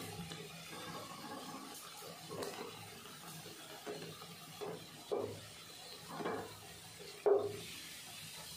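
Hot oil sizzling steadily as coconut vadas deep-fry in a wok, with a few short louder sounds over it, the loudest about seven seconds in.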